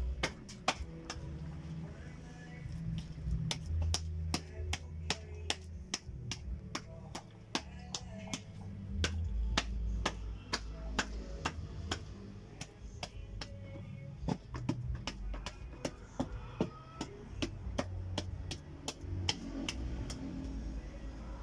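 A long run of sharp clicks or taps, about three a second and slightly irregular, over low rumbling handling noise.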